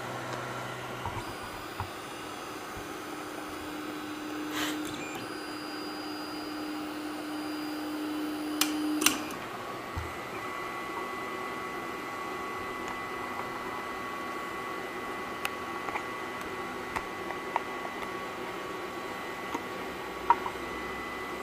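Wanhao Duplicator 9 3D printer's stepper motors running as it homes and runs its auto-leveling routine over the build plate: a steady low hum for several seconds, a few clicks, then a higher, thinner steady whine.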